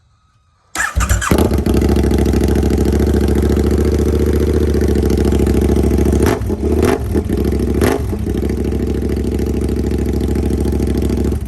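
KTM 1290 Super Adventure's 1301 cc V-twin started with its muffler removed, running open through only the catalytic converter: it catches about a second in and runs loud, with a few brief throttle blips past the middle, then is shut off at the end.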